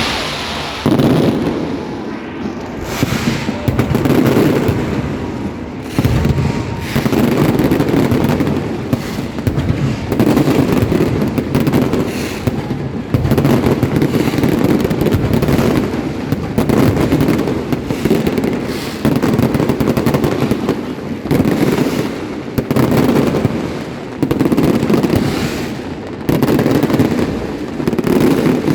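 Fireworks going off continuously: many bangs and crackles in quick overlapping succession, with repeated swells of low booming.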